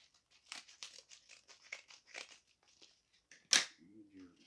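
Scissors snipping through a padded paper mailer, with the envelope crinkling and rustling in short scratchy strokes, then one short, loud rip about three and a half seconds in as it is pulled open.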